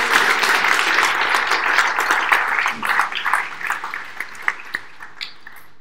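Audience applauding, strong at first, then thinning to a few scattered claps and stopping about five seconds in.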